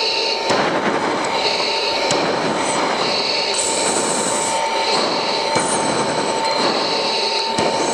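Steady noise of an F-16 fighter jet's cockpit heard through the intercom feed, with a constant whistle-like tone and a higher hiss that comes and goes every second or two.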